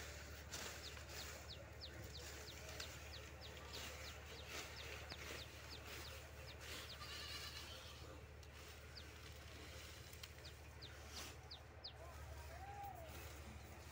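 Faint farmyard sound: a small bird repeating short falling chirps several times a second, with a faint livestock call about halfway through and a few soft rustles of fodder greens being cut by hand with a sickle.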